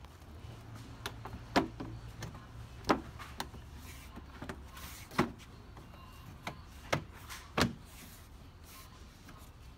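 Isuzu D-Max front door trim panel being pressed back onto the door by hand, its plastic clips snapping home: about half a dozen sharp, irregularly spaced knocks and clicks over a low steady hum.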